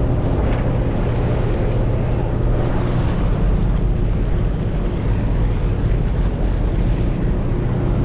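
Fishing boat's engine droning steadily, a low hum under the hiss of wind and water.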